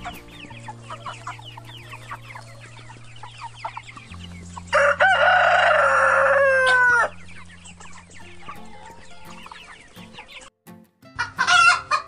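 Flock of chickens clucking and chattering softly, then a rooster crows once, loud and long, about five seconds in, the crow ending in falling notes. Another brief loud call comes near the end.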